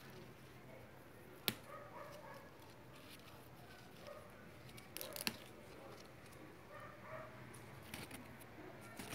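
Faint handling of potting soil in a concrete pot, fingers digging and scraping through the earth, with a few sharp clicks, the clearest about a second and a half in and twice around five seconds in.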